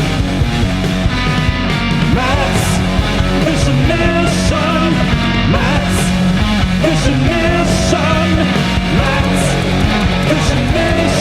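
Rock-style background music with a steady beat and a wavering melodic lead line.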